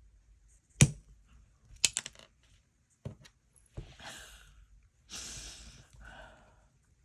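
Pliers clicking and snapping against a small hard-plastic button as they grip and twist at its back, a few sharp clicks, the loudest a little under a second in, with breathy straining exhales in between.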